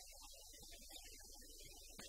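Near silence: a steady low hum of room tone.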